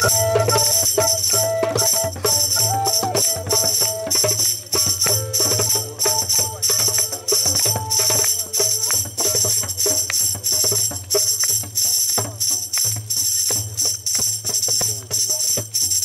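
Tambourine shaken in a fast, steady jingling rhythm, with hand-drum strokes underneath. An end-blown pipe plays a melody over it, fading out about halfway through.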